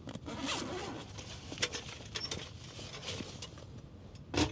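Camping gear being handled: rustling and light knocks, with a bird calling in the background. A louder knock comes near the end.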